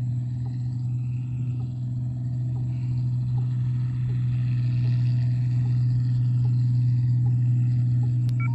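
New Holland 8060 combine harvester running steadily while cutting rice, a low, even drone. A short click near the end.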